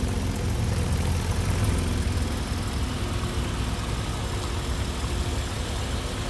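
Porsche 911 Carrera's flat-six engine running at low revs as the car creeps past, a steady low exhaust note.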